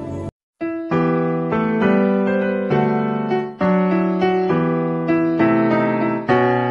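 Background music: a held ambient pad cuts off just after the start, then after a brief silence a piano-like keyboard plays notes and chords about twice a second.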